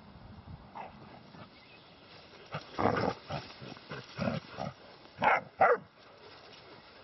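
Irish Wolfhound puppies vocalising in rough play: a few rough bursts around the middle, then two short, sharp barks near the end.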